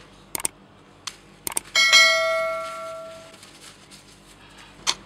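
A few light knocks of kitchen things being handled, then a metal kitchen item is struck once and rings like a bell, its tone fading over about a second and a half. One more knock comes near the end.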